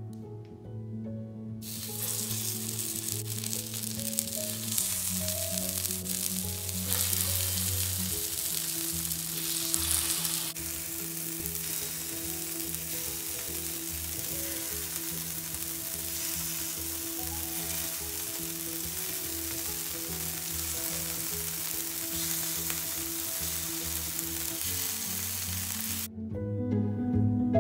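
Oil sizzling and frying on a hot Presto electric griddle as barnyard millet and potato patties are laid on it to pan-fry. The sizzle starts about two seconds in and cuts off suddenly near the end, with soft background music underneath.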